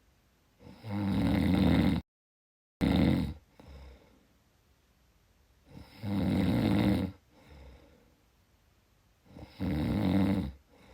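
A person snoring steadily: three loud snores about four seconds apart, each lasting about a second, with a quieter breath after each. The first snore breaks off for a moment of dead silence.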